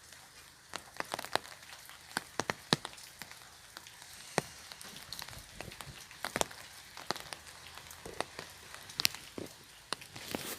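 Rain falling on an umbrella: irregular sharp taps of single drops, several a second, over a faint steady hiss of rain.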